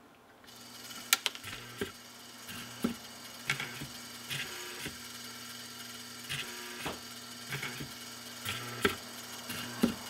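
Vintage Rittenhouse 8-note door chime base running on power. Its drum motor hums steadily from about half a second in, and the solenoid plungers click in an uneven series as the turning drum's tabs close each switch in turn.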